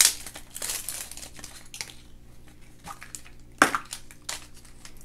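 Packaging crinkling and rustling as a toy surprise egg is unwrapped and opened, with a sharp crackle at the start and another louder one about three and a half seconds in.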